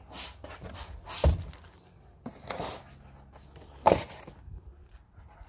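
Two sharp knocks, about two and a half seconds apart, as parts of a bird bath and feeder are fitted together, with faint handling and rustling between them.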